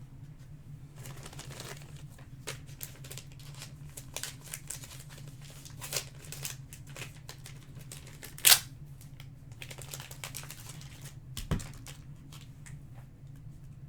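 Trading cards and foil packs being handled on a table: scattered light clicks, taps and rustles, with a sharp click about eight and a half seconds in and a dull thump about three seconds later, over a steady low hum.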